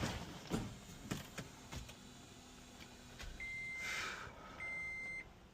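A few light clicks, then a 2015 Toyota Prius's electronic warning beeper starts beeping steadily, about one high beep a second, with a short hiss over the first beep.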